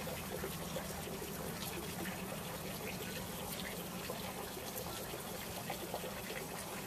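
A steady, even background hiss with faint scattered ticks, like trickling water.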